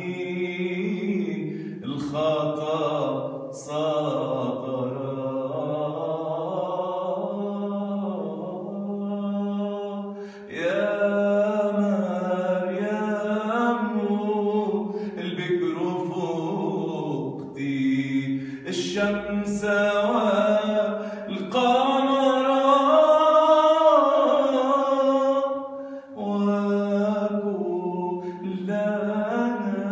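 A man singing an Arabic Marian hymn alone and unaccompanied, in long drawn-out phrases with ornamented, wavering notes and brief pauses for breath.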